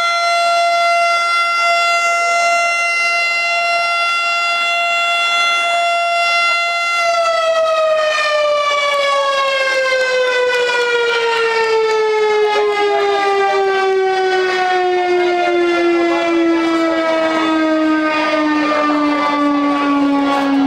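Federal Signal STH-10 Thunderbolt civil defense siren sounding a single steady tone at full pitch, then about seven seconds in it starts winding down, its pitch falling smoothly and steadily.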